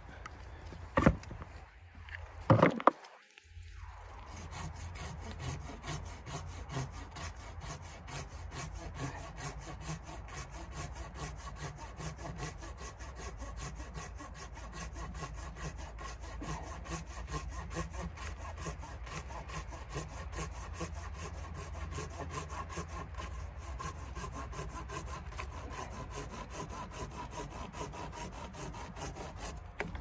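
Hand pruning saw cutting through a fallen pine branch with steady, rapid back-and-forth strokes. A couple of sharp clicks come in the first few seconds, before the sawing settles in.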